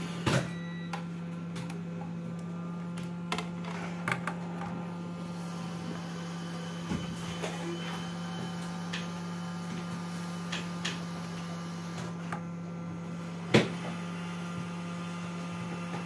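SMD hot-air rework station blowing with a steady hum while a small surface-mount component is desoldered from a motherboard, with a few light clicks of metal tweezers and one sharper click near the end.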